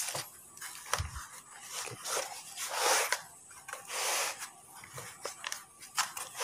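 Hands pressing and rubbing on a plastic basin mould to work a cast concrete weight plate loose: a dull knock about a second in, then several short rasping rubs.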